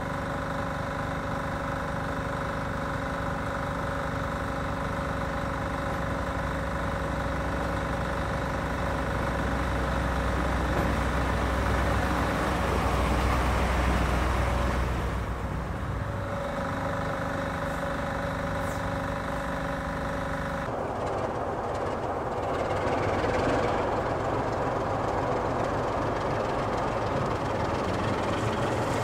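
Diesel engine running steadily with a deep, even drone, swelling to its loudest about halfway as a Plasser TASC 45 track machine comes past close by. About two-thirds through the sound changes abruptly to a Sulzer-engined Peak class diesel locomotive running at idle, rougher and noisier.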